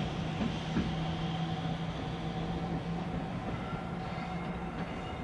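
EF210 electric locomotive running light at low speed, giving a steady electrical hum with a few thinner, higher steady tones above it and a few faint clicks.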